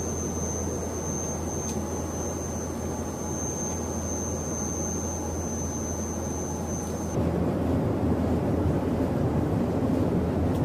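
Steady drone of a CASA CN-235's twin turboprop engines heard inside the cabin, with a thin high whine over it for the first seven seconds or so. About seven seconds in, the whine stops and the drone gets louder.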